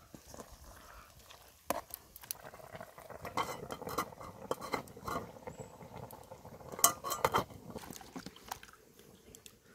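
Metal spoon clinking and scraping against a steel wok while stirring, then the wok's metal lid clanking into place, with a pair of sharp knocks about seven seconds in.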